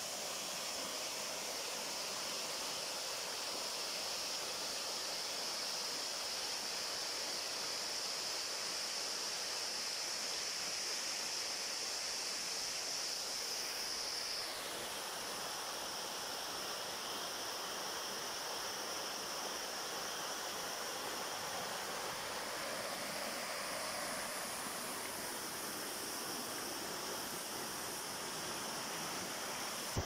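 Small forest waterfall splashing down a mossy rock face into a stream pool: a steady rushing of water. Its high hiss shifts lower about halfway through.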